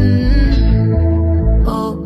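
Background music: an R&B track with a heavy bass line and a steady beat, between sung lines.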